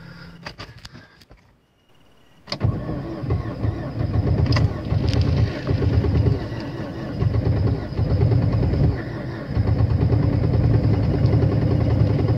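Opel car engine being cold-started in severe frost. A few clicks and a short silence come first. About two and a half seconds in, a loud, uneven, pulsing engine sound starts up and keeps going.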